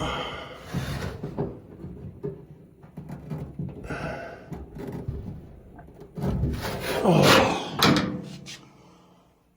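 Irregular clicks, knocks and rubbing of hands working inside a dryer cabinet, pushing the heating element's wires back onto their terminals. About six seconds in there is a louder rushing sound that falls away over about two seconds.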